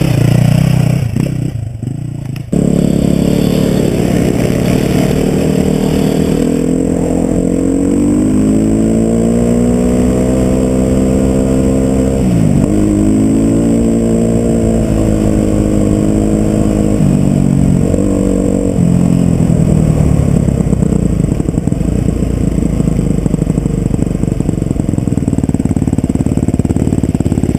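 Dirt bike engine heard from on board the bike, revving up and down as it rides through the gears, with steady wind and road rush. About twelve seconds in the revs drop sharply and then climb again.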